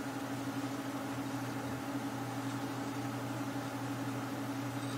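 Steady low hum with a faint hiss and no distinct events: background room tone.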